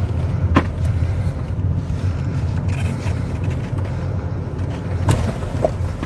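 Car being driven, heard from inside the cabin: a steady low rumble of engine and road noise, with a couple of light clicks, one about half a second in and one about five seconds in.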